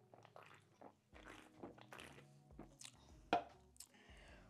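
Faint swallows and small mouth sounds of someone drinking from a can, with one sharp knock a little over three seconds in.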